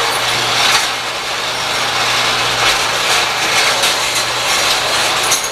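Small motor-driven machinery running steadily, with a constant low hum under an even whirring hiss and faint light ticking.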